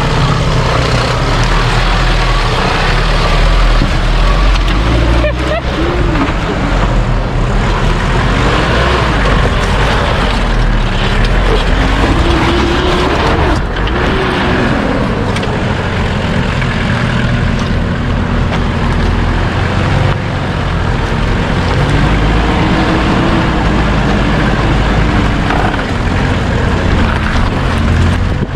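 Off-road 4x4's engine running under load, its revs rising and falling repeatedly as the vehicle works slowly over rough ground.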